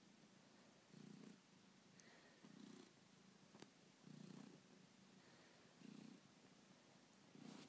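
A cat purring faintly, in slow swells about every second and a half, while it kneads and suckles a fleece robe. This is nursing behaviour in a cat weaned too early. A couple of faint clicks are heard in the middle.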